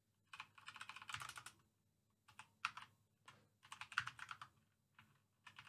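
Faint typing on a computer keyboard: quick runs of keystrokes in a few short spells with pauses between.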